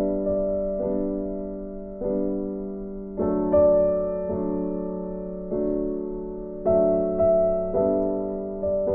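Slow piano music: chords struck about once a second, each fading away before the next.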